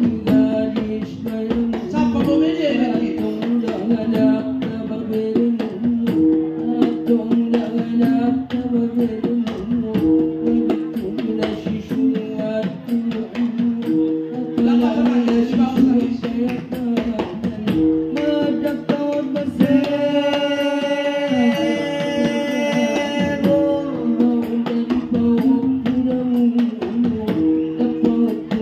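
Music: a song sung over plucked-string instruments and a regular drumbeat, with a long held high note about two-thirds of the way through.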